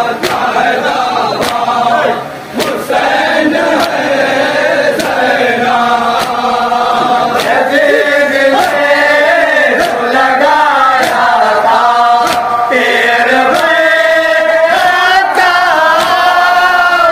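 A group of men chanting a Shia noha in Urdu, the lead voice calling out loudly and the others answering, with sharp slaps about every 0.7 s from chest-beating (matam) keeping the beat. The chanting breaks off briefly about two seconds in.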